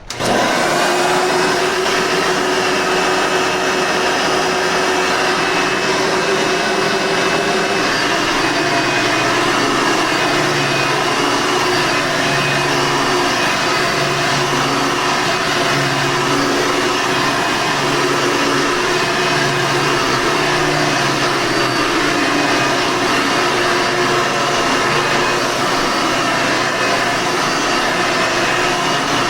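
A Hoover Soft N Light upright vacuum cleaner with a 7-amp motor switches on suddenly and runs steadily. From about ten seconds in, its hum rises and falls in a slow, regular pattern.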